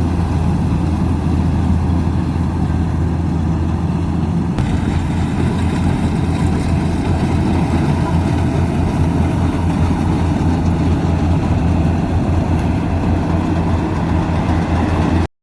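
Yanmar AW70GV combine harvester's diesel engine running steadily with a low, even hum, cutting off suddenly at the very end.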